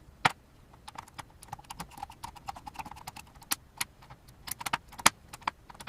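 Small irregular clicks and taps of tools working on a camera's lens mount, several a second, with a sharper knock just after the start and another about five seconds in.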